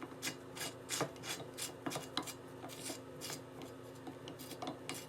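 Faint, irregular metal clicks and light scrapes, a few a second, as the bolt is turned in by hand in the swivel pedestal's post, getting its thread started before it is tightened.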